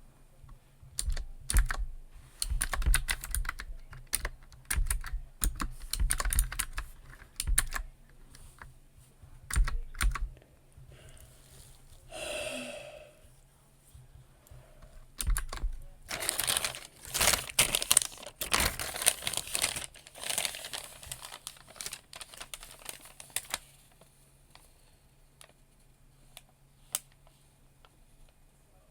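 Typing on a computer keyboard in bursts of keystrokes with pauses between them, thinning out to a few scattered single clicks near the end.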